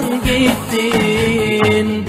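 Music: a voice singing a wavering, ornamented Middle Eastern-style melody over sustained accompaniment.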